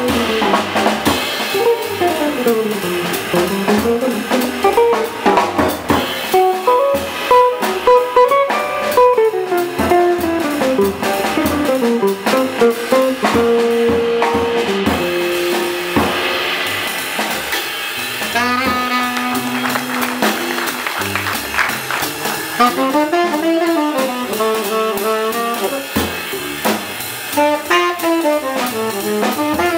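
Small jazz group playing live: a hollow-body electric guitar soloing over piano, upright bass and drum kit, with the tenor saxophone taking over the lead in the later part.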